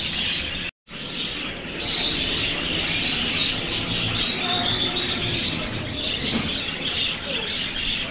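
A flock of caged budgerigars chattering, a dense steady mass of chirps and warbles, broken by a brief moment of silence just under a second in.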